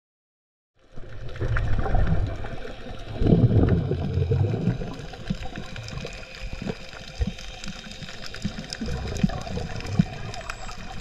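Muffled underwater sound of water sloshing and bubbling, with a low rumble and scattered sharp clicks, starting about a second in and loudest around three to four seconds in.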